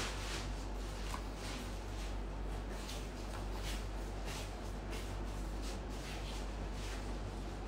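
Soft rustling and shuffling, irregular faint swishes about once or twice a second, over a steady low hum.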